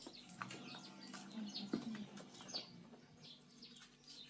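Small birds chirping, many short high falling chirps one after another.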